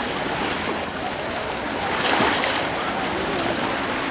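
Small sea waves washing in over the shallows at the shoreline: a steady hiss with a louder surge about two seconds in.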